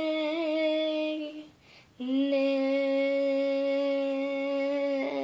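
A young girl singing unaccompanied, holding long wordless notes: the first fades just over a second in, and after a short breath a second, steady note is held for nearly four seconds.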